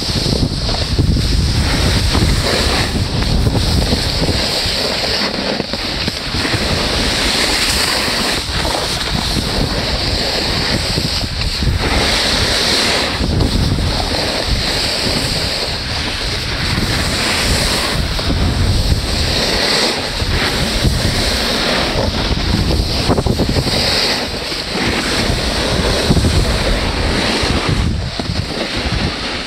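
Wind buffeting the microphone with a loud, uneven low rumble, over a steady hiss of sliding on snow.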